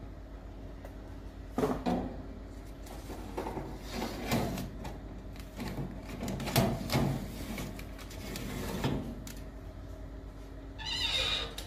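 Metal baking tray scraping and clattering against the wire rack of an electric countertop oven as it is slid in, in several separate knocks and scrapes.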